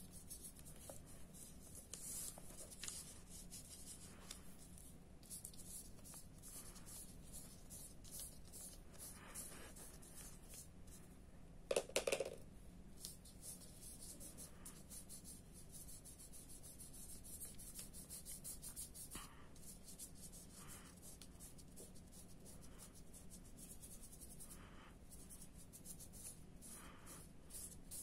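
Paintbrush bristles brushing red paint onto paper: a faint, irregular run of short scratchy strokes, with one brief louder sound near the middle.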